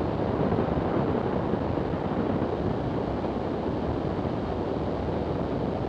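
Zenith STOL CH 750 light aircraft in flight: a steady drone of engine and airflow noise, the engine throttled back for the landing approach.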